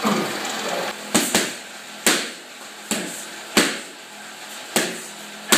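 Boxing gloves striking focus mitts: about seven sharp smacks at an uneven pace. The first two come close together about a second in.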